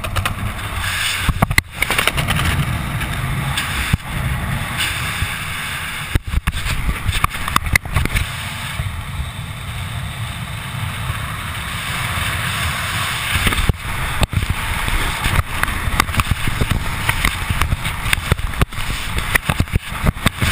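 Wind rushing over a helmet camera's microphone during flight under an open parachute canopy, gusting unevenly with a few brief dropouts.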